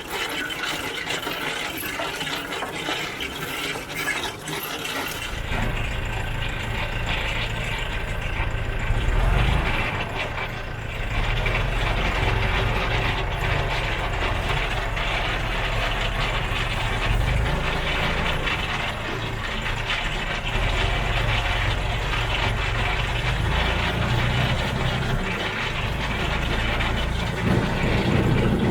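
Tractor and trailed potato harvester working: a steady clattering and rattling of the harvester's conveyors and moving parts, with the tractor's engine drone coming in strongly about five seconds in.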